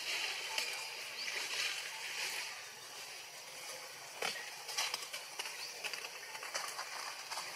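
Outdoor ambience among trees: a steady high hiss with scattered short clicks and crackles, and a faint steady high tone.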